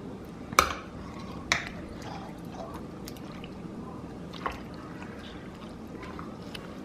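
Metal spoon stirring wet shrimp ceviche in a stainless steel bowl: juicy squishing of the mixture, with two sharp clinks of spoon on bowl about a second apart near the start and a softer one a little after the middle.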